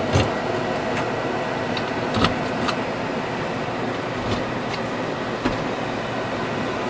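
Steady background hum with a handful of sharp clicks and knocks from handling at an opened DVD rental kiosk.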